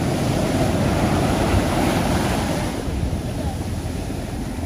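Surf: waves breaking and washing up the beach, loudest over the first three seconds and easing after, with wind buffeting the microphone.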